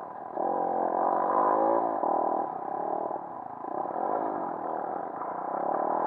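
Small single-cylinder pit bike engine revving up under acceleration. Its pitch rises and drops back about three times, as on shifts up through the gears.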